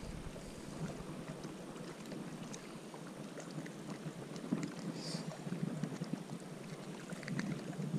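Quiet outdoor hiss of light wind on the microphone, with scattered small ticks and a brief scratchy sound about five seconds in as hands unhook a soft-plastic worm from a small bass.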